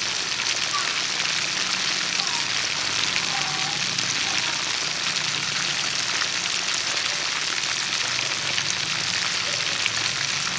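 Chicken pieces deep-frying in hot oil in a wide steel wok: a steady sizzle with fine crackling throughout.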